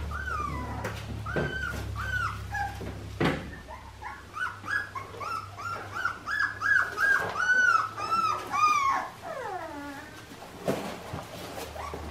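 Australian Shepherd puppies whimpering: short high whines, coming quicker and louder in the middle, ending with one long whine that falls in pitch.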